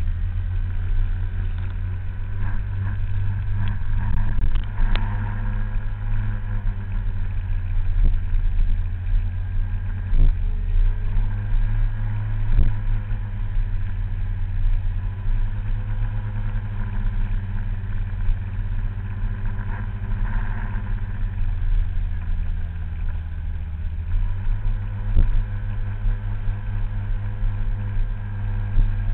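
Scooter engine running steadily at road speed, heard from a camera mounted on the scooter itself. Its note shifts a little about a third of the way in and again about three quarters through.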